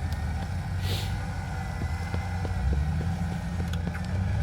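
Off-road vehicle engine running at low revs, its pitch wavering and rising a little near the end, with scattered light knocks and a brief hiss about a second in.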